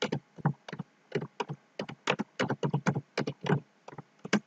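Typing on a computer keyboard: a quick, uneven run of keystrokes, about four or five a second.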